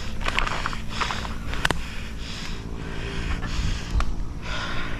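A mountain biker breathing hard close to the microphone, quick breaths about two a second, with two sharp clicks, one near the middle and one near the end.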